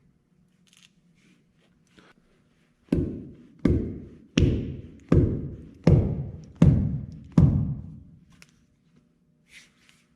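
Seven heavy knocks, evenly spaced about three-quarters of a second apart, each dying away with a short low ring, as a hammer head is driven onto its new fiberglass handle.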